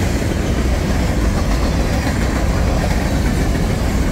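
Freight train cars (tank cars and covered hoppers) rolling past, giving a steady rumble of steel wheels on rail.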